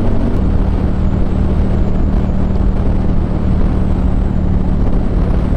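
Motorcycle engine running at a steady cruise under a constant rush of wind and road noise. Its note drops slightly about half a second in, then holds steady.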